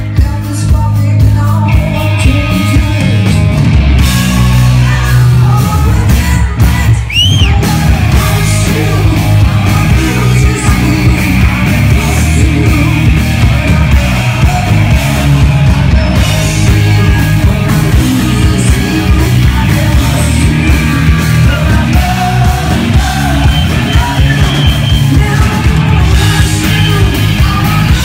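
Live rock band playing loud: distorted electric guitar through Marshall amplifiers, a drum kit, and a singer's vocals yelled and sung into a handheld microphone.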